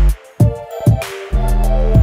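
Background music with a beat: bass notes and drum hits, with a short break about a quarter-second in.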